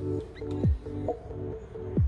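Background electronic music with a steady beat of deep, falling drum hits.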